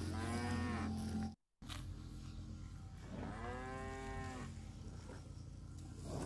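Cattle mooing twice: a short moo right at the start and a longer, fuller moo about three seconds in.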